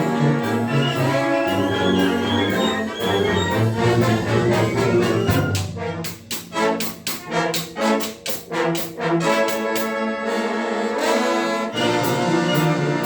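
Concert band playing with the brass to the fore: held chords, then about halfway a run of short, sharp accented chords about three a second, before the held chords return.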